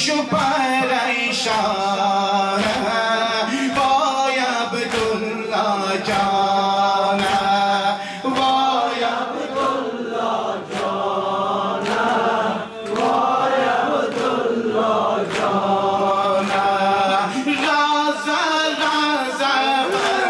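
Men's voices chanting a Shia mourning lament (noha), with rhythmic chest-beating (matam) slaps about once a second.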